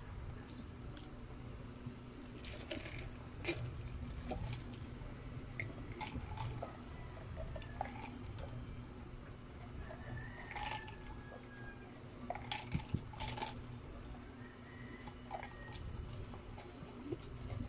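Scattered small clicks and crinkles as a paper drink cup and paper wrappers are handled close to a microphone, over a steady low hum.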